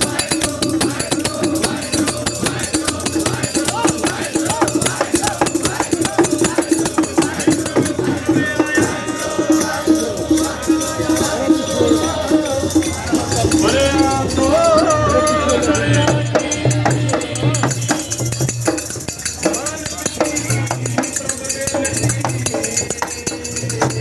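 Devotional procession music: rapid jingling hand percussion over a held drone, with voices singing a hymn.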